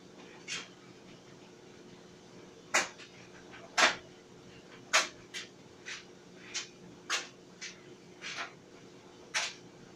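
Tumble clothes dryer running: a steady low motor hum with about a dozen sharp knocks and clunks at irregular intervals, roughly one a second, as the load tumbles against the drum.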